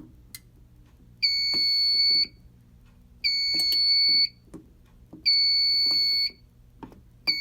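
Fire alarm sounder beeping in a slow on-off pattern, a steady high tone about one second on and one second off, sounding three times and starting a fourth near the end. Small clicks fall in the gaps.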